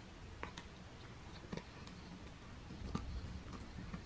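Bernedoodle puppy chewing on a hard chew bone: scattered sharp clicks of teeth on the bone, a few to the second at most, over a faint low hum.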